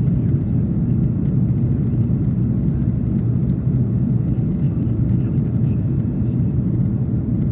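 Steady low rumble of an Airbus A330-300's engines and rushing air, heard inside the cabin during the climb after takeoff.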